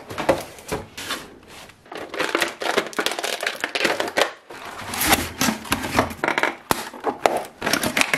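Clear plastic blister trays and cardboard toy boxes being handled and opened by gloved hands. The plastic crinkles and crackles in a dense, irregular run of sharp rustles, with a brief lull partway through.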